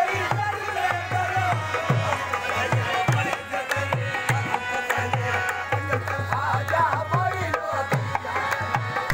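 Qawwali: a singer's voice rising and falling in long ornamented lines over a steady beat on a hand drum.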